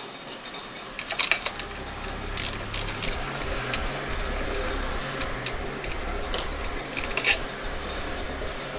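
Scattered sharp metallic clicks and clinks of bolts and hand tools being handled while a part is fitted, over a steady low hum that starts about a second and a half in.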